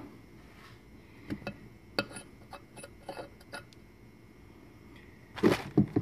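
Small metallic clicks and taps of a valve and its parts being handled on a bare aluminium LS cylinder head, as the valve stem is slid back into its guide. A louder clatter of handling knocks comes near the end.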